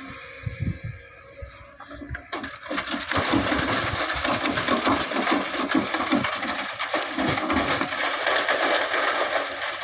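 Sand pouring from an excavator bucket into a dump truck bed: a dense rushing patter with fine crackles that starts about two seconds in, after a few low knocks, and stops shortly before the end.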